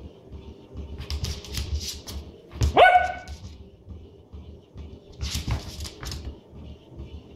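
Small dog giving one short, high yip that rises in pitch, about three seconds in, while playing. Bursts of scuffling noise come before and after it as the dog pounces about.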